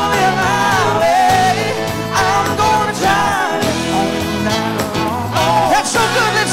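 A country-rock band playing live: electric guitars, bass and drums, with sung lead vocals over them.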